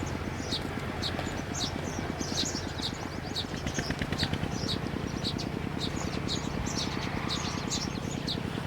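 Small birds chirping repeatedly, short high falling notes about two or three a second, over a low steady mechanical rumble like a running engine.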